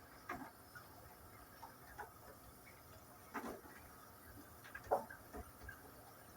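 A few scattered light knocks and clicks, about five in all, the sharpest a little before the five-second mark.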